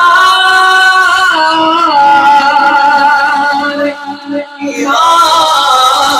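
A man singing a naat, an Urdu devotional poem, unaccompanied into a microphone, drawing out long melismatic notes. The voice breaks off briefly about four seconds in and then carries on.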